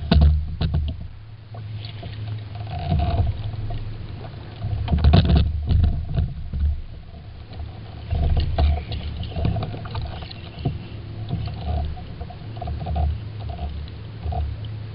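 Wind gusting on the microphone and water sloshing against a kayak, with louder knocks or splashes near the start and about five seconds in.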